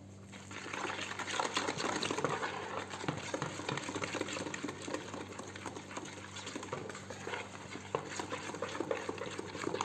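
Flour being stirred into a wet, sticky brioche batter in a mixing bowl: a steady run of small scrapes and soft clicks that starts just after the opening.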